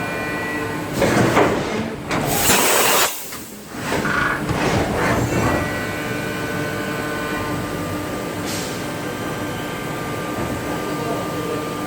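Mazak Nexus 4000-II horizontal machining center running with a steady whine of several held tones. About a second in, a few seconds of loud rushing, clattering mechanical noise break in, then settle back to the steady whine.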